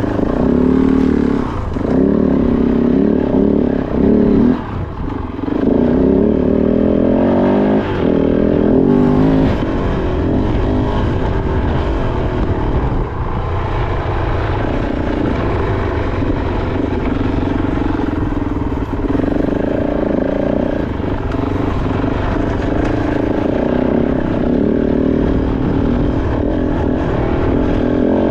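Kove 450 Rally's single-cylinder four-stroke engine under way on a dirt trail, its pitch rising and falling repeatedly as the throttle is opened and closed.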